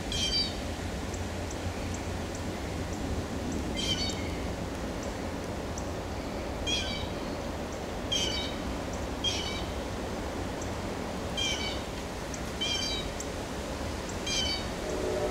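An animal's short, high calls, each falling slightly in pitch, repeated about eight times at irregular intervals over a steady low background rumble.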